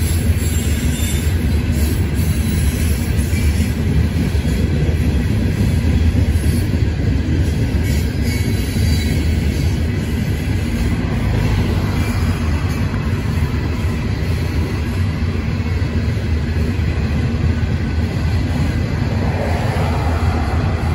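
Freight train cars rolling past, a steady low rumble of steel wheels on rail.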